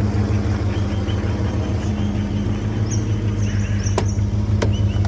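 Holden 5.0-litre V8 idling steadily, with two sharp clicks about four seconds in.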